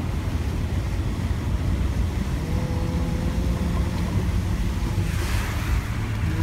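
A car driving through deep floodwater, heard from inside the cabin: a steady low rumble of the engine and of water washing against the car. A steady low hum joins about two and a half seconds in, and a hiss of splashing spray comes about five seconds in.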